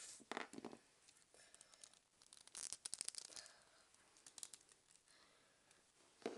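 Faint clicks and rustles of a plastic action figure being handled and moved about, in a few short bursts.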